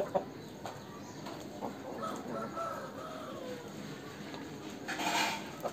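A rooster calling, with one louder, short call about five seconds in and fainter pitched calls before it.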